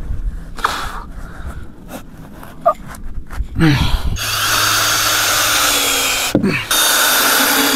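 Power drill spinning up with a rising whine and running steadily for about two and a half seconds, then winding down with a falling whine. After a brief pause it starts a second run. A few light knocks come before it.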